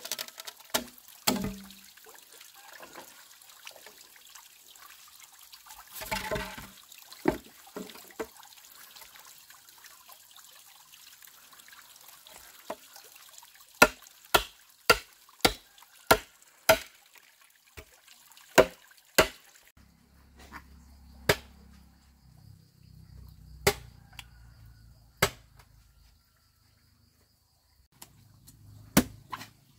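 Machete chopping a green bamboo pole: sharp single strikes in runs of several, with pauses between, and a longer splintering crack about six seconds in.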